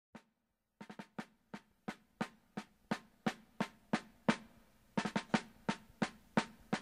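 Drum beat playing alone, even sharp strikes about three a second, starting about a second in after a single hit.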